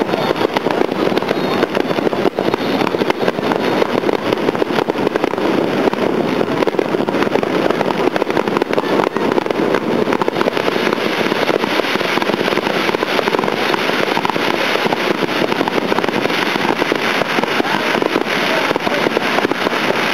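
Fireworks display: a dense, unbroken barrage of bursts and crackles, many rapid pops running into one another without a pause.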